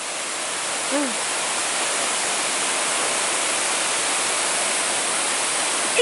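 Small waterfall pouring between boulders into a pool: a steady, even rush of falling water. A short voice sound cuts in briefly about a second in.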